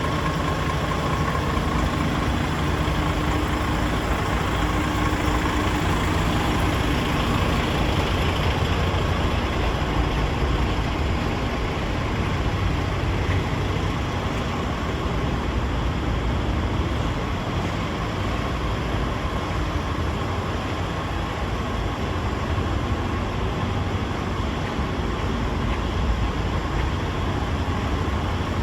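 The Paccar 460 bhp diesel engine of a DAF CF85 truck idling steadily, a low, even rumble with no revving.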